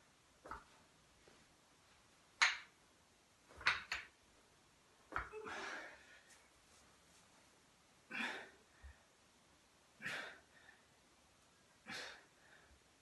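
A man's short, sharp exhalations of effort, one every one to two seconds, as he works through reps with a pair of dumbbells.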